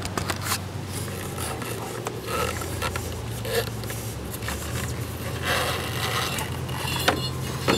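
Rubber CVT drive belt being worked off a Polaris ATV's secondary clutch by hand: the belt rubs and scrapes against the aluminium sheaves as the clutch is twisted open, with a few sharp clicks near the start and near the end.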